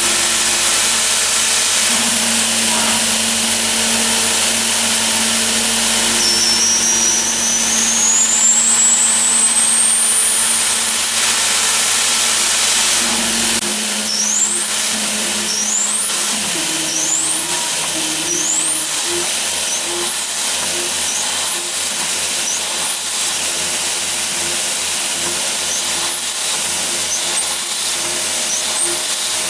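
A CNC machine's motors driving a wire-weaving loom, under a steady mechanical hum. Two long rising whines come in the first half as the axes speed up through long moves. From about halfway there are short rising chirps, roughly one a second, with light ticks.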